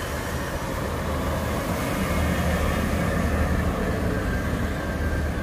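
Orange fuel tanker truck driving past on an asphalt road: a steady deep rumble of engine and tyres that swells slightly as it comes alongside.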